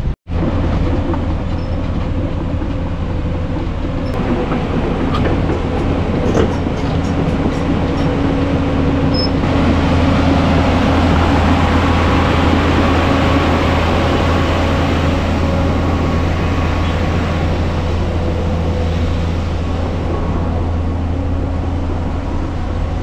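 Van driving along a rough dirt track: a steady low engine drone under continuous road rumble, with short knocks and rattles from the body as it goes over the bumps.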